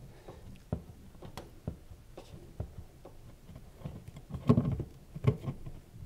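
Pump pliers working a rubber dishwasher drain hose side to side off the drain pump's plastic outlet pipe. Scattered small clicks and creaks, with two louder knocks about four and a half and five and a half seconds in.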